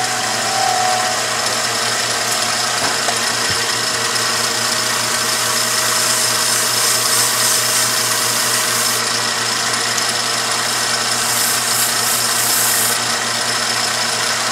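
Billiard cue lathe running at speed with a steady motor hum and whine, while a melamine sponge eraser wetted with alcohol rubs on the spinning ferrule to clean off chalk stains.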